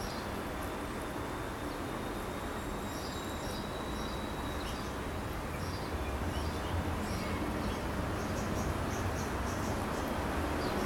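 Steady outdoor background noise with a low rumble, dotted with clusters of short, high chirps.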